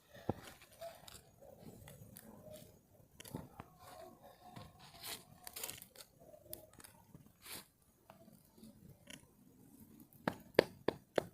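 Campfire crackling: irregular small snaps and crackles, with a quick run of louder, sharper pops near the end.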